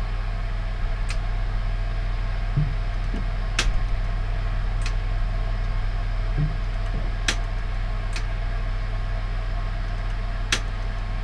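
A 30 mA RCBO in a fuse board clicking as an RCD tester runs its automatic trip sequence and the breaker is switched back on by hand: about six sharp clicks, one to three seconds apart, over a steady hum.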